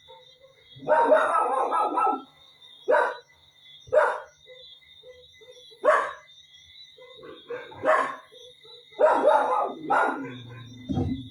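A dog barking repeatedly, in short separate barks a second or two apart.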